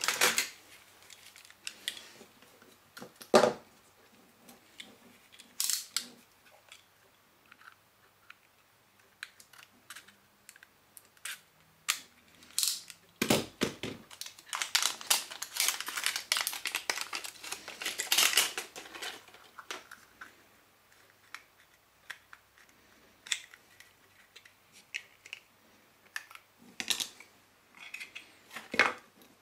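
Hands opening the small plastic case of an RC car engine sound module: scattered clicks and knocks of plastic parts set down and prised apart, with a few seconds of dense crackling and rustling near the middle, and wires and a speaker handled on a tabletop.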